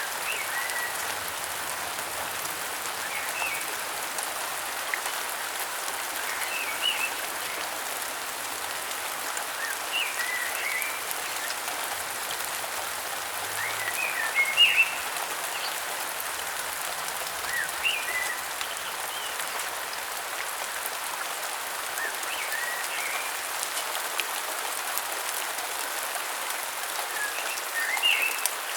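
Steady rain falling, with a bird giving a short chirping call about every three to four seconds.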